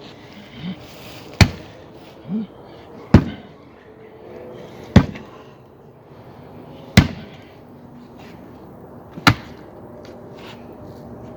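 Axe chopping into a tree stump: five sharp strikes about two seconds apart. A couple of short voice sounds come between the first strikes.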